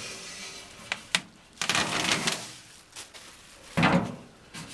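Handling noises from an aluminum fire table being turned upright: a couple of light clicks, a scraping rush, then a thunk near the end as it is set down.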